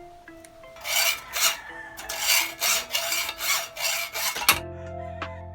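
About nine quick, rough abrasive scraping strokes, like hand sanding or filing, starting about a second in and stopping abruptly near the end, over quiet background music.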